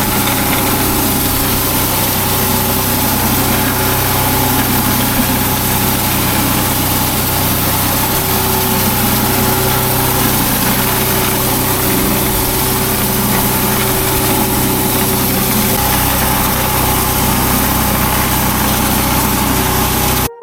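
Engine-driven pressure washer running steadily, its engine note under a hiss of spray, cutting in and out abruptly at the edges.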